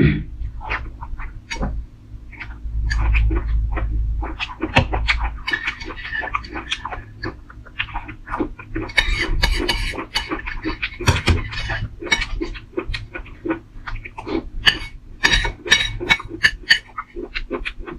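Close-up eating sounds: chewing and mouth smacking, a quick irregular run of small wet clicks.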